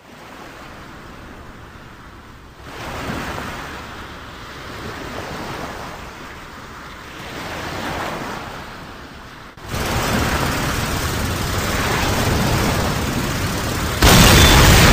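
Rushing sea and surf noise with slow swells that rise and fall, jumping louder about ten seconds in and again near the end.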